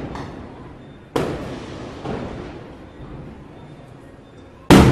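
Aerial fireworks bursting: a loud bang about a second in, a softer one around two seconds, and another loud bang near the end, each dying away slowly in a long echoing tail.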